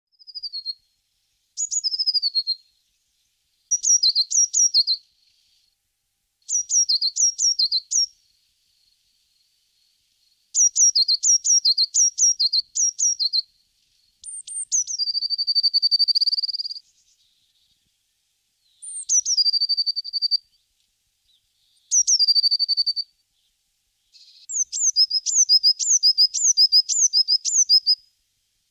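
Small songbird singing in short high phrases of quick descending notes separated by brief silences, some phrases ending in a held trill. Near the end comes a longer run of fast repeated two-note figures.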